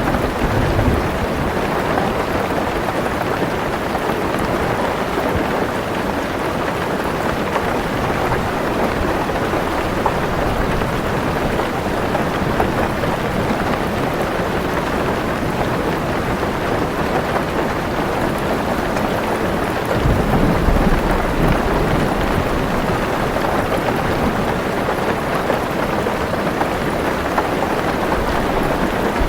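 Heavy rain drumming steadily on a car roof, a dense even hiss. A low rumble of thunder swells in about two-thirds of the way through and rolls on for a few seconds.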